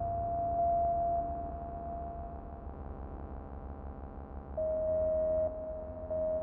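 Electronic synthesizer music over a low steady drone. A pure high tone is held and fades out over the first couple of seconds. A second held tone comes in about halfway through and breaks off briefly twice near the end.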